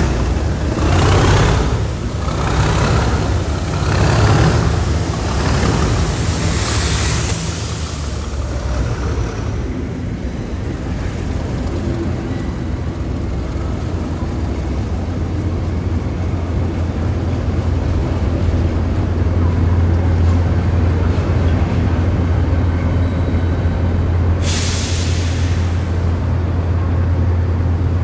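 A pair of English Electric Class 37 diesel locomotives pull away, their engines throbbing in pulses as they go by, then a steady low drone as they recede. A brief burst of hiss cuts in near the end.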